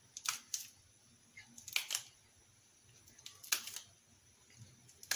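Knife slicing a hot green chili pepper held in the hand, a few crisp cuts about one every second or so.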